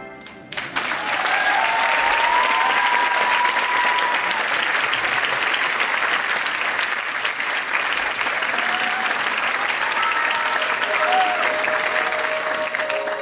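Theatre audience applauding, bursting in about half a second in as the music stops and holding steady, with music coming back in under it near the end.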